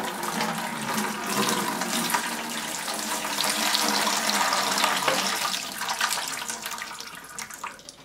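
Water pouring in a steady stream from a dehumidifier's plastic collection tank into a plastic bucket, trailing off near the end as the tank empties.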